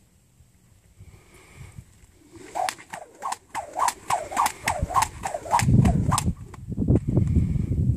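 A lead rope swung round and round over a horse, whooshing about twice a second for some four seconds, with a low rumble coming in over the last couple of seconds.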